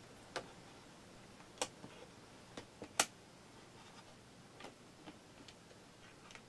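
Scattered light clicks, about a dozen at irregular intervals over a faint steady hum, the loudest about three seconds in.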